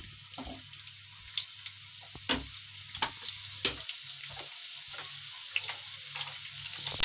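Sliced onions sizzling in hot oil in a nonstick kadai, freshly added, with frequent small pops.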